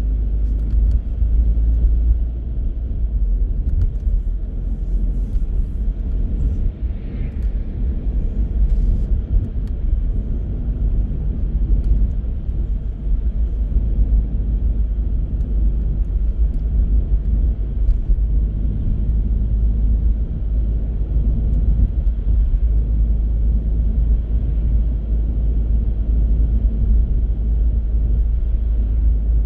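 A car driving at steady speed: a continuous low rumble of tyre, road and engine noise.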